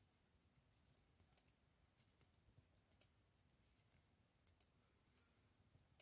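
Faint, scattered clicks of a crochet hook knocking against a knitting needle as knitted stitches are slipped one by one onto the hook, over near silence.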